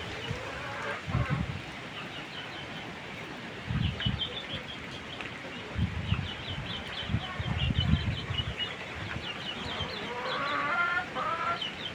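Chickens clucking and calling, with runs of short high chirping notes and a longer, rising call about ten seconds in. Low rumbling bursts, like wind on the microphone, come and go.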